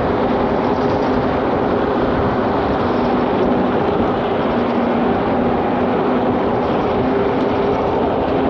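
Steady wind rush and road noise from a Super73 electric bike riding at speed, heard from a handlebar-mounted camera, with a low hum that comes and goes.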